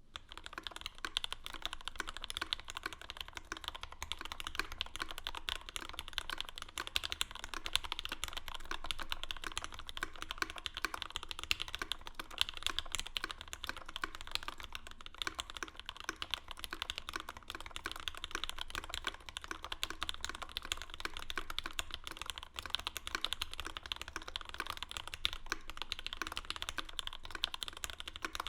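Continuous fast typing on a mechanical keyboard with Gateron Black Ink v2 linear switches, lubed with Krytox 205g0 and fitted with films, mounted on an aluminum plate in an aluminum Bauer case, with GMK ABS keycaps. A dense, unbroken stream of keystroke clacks that begins at once.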